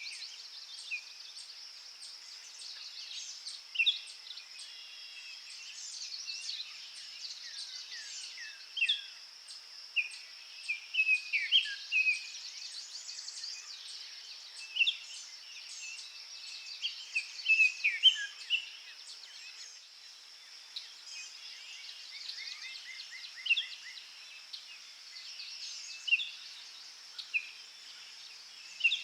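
Small garden songbirds chirping and calling in short, scattered notes, with a quick trill of short notes about three quarters of the way through, over a steady high-pitched hiss.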